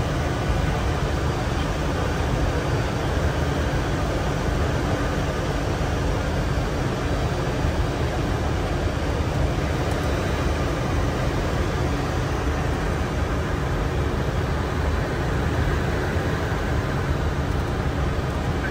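Steady rushing cockpit noise inside a Boeing 747-400 flight deck on approach, with airflow and ventilation noise heaviest in the low end and a faint steady hum.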